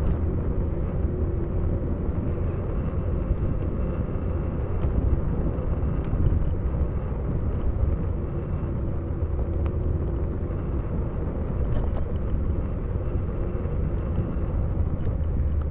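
Steady low rumble of wind buffeting the microphone and tyres rolling on the road during a ride.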